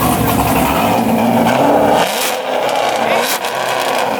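A car engine held at high revs, loud as hell, with dense noisy running and no clear change in pitch.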